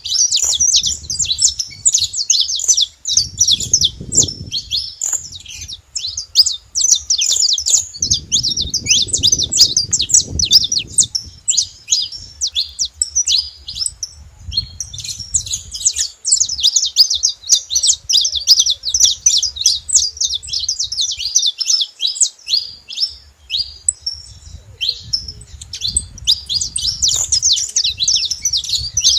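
Saffron finch singing: long runs of rapid, high chirps, broken by brief pauses.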